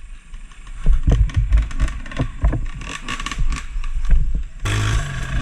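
Off-road vehicle on rough ground: a low rumble with repeated irregular jolts and knocks, turning to a steadier hum of running noise about four and a half seconds in.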